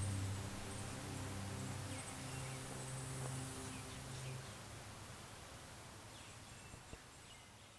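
Low held musical notes shifting chord twice and fading out under a steady outdoor hiss, with a few faint bird chirps.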